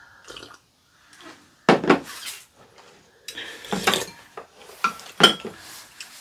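Wooden spoons knocking and scraping against ceramic soup bowls in a handful of short, sharp clinks, with sips of hot soup from the spoon; the sharpest clink comes near the end.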